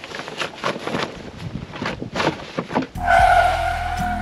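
Canvas spare-wheel bag being handled and closed: rustling fabric and small clicks from the flap and fittings. About three seconds in, music starts, and a loud, drawn-out harsh call lasting about a second sounds over it.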